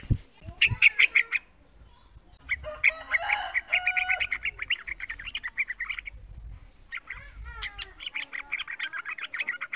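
A young yellow-vented bulbul singing three runs of rapid, bright chattering notes with short pauses between them. A brief low knock sounds at the very start.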